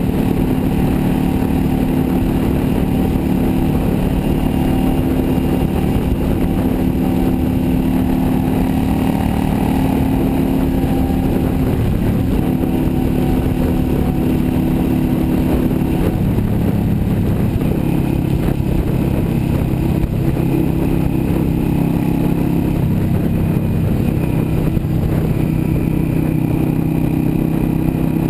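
Yamaha V Star 650's air-cooled V-twin running steadily at highway cruising speed, with wind rush on the microphone. The engine note shifts slightly a few times, around halfway and again later on.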